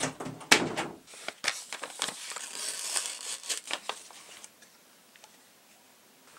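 Paper envelope rustling and crinkling as it is opened and a cassette tape taken out, with a sharp knock about half a second in. The handling stops about four and a half seconds in.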